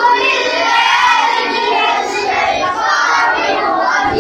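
A group of voices chanting Quran recitation together in unison, a class repeating a line after the qari in a recitation drill.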